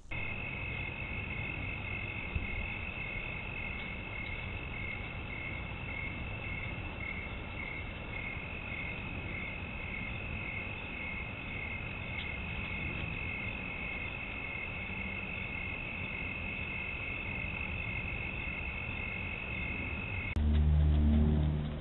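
Night chorus of crickets: one steady high trill with a second chirp pulsing about twice a second, over a faint hiss. Near the end it cuts off and a louder low buzzing hum takes over.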